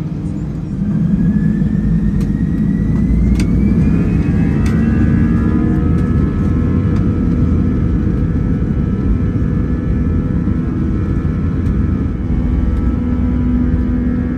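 Airbus A320's CFM56 jet engines spooling up to takeoff thrust, heard from inside the cabin: the sound grows louder about a second in, and a whine climbs in pitch for a few seconds, then holds steady over a heavy low rumble. A few sharp clicks stand out early on the climb.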